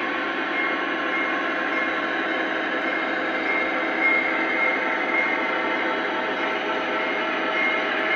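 Model diesel locomotives' onboard sound systems playing a steady engine drone through small speakers, with a few held tones over a noisy rumble and no deep bass.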